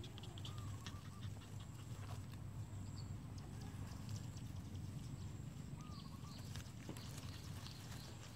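Puppies licking and chewing at a cut watermelon: scattered small wet clicks over a steady low outdoor rumble, with a few faint short warbling chirps now and then.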